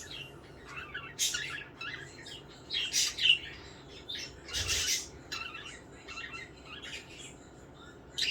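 Pet budgerigars chirping and chattering, with a few louder, harsher calls among the short high chirps.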